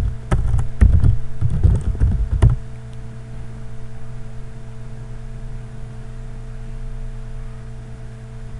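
Keystrokes on a computer keyboard for about two and a half seconds, then the typing stops and a steady low electrical hum is left.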